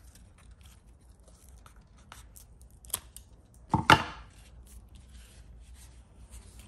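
Scissors snipping off dead, rotted orchid roots at the base of the stem: scattered small clicks and cuts, with a louder sharp clack near four seconds in.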